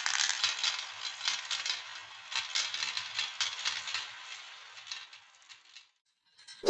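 Many marbles rolling and clattering along a toy marble run track: a dense rattle of small clicks that thins out and stops about six seconds in. A single sharp knock lands right at the end.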